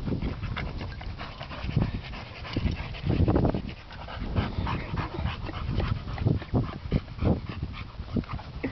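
Two boxer dogs play-wrestling, their breathing and play noises coming in irregular short bursts, loudest about three seconds in.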